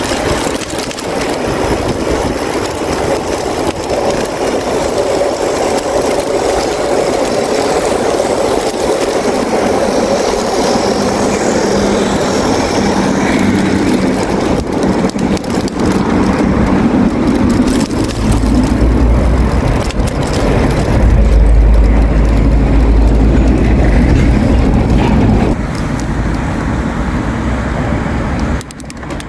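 Wind buffeting the microphone on a moving bicycle, a steady rushing noise. A heavy low rumble builds past the middle and drops off near the end.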